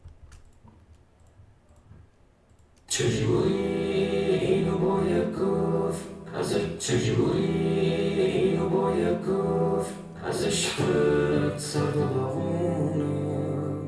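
Near silence with a few faint clicks for about three seconds. Then a sung pop vocal track starts abruptly and plays on, run through the Antares Harmony Engine harmonizer plug-in.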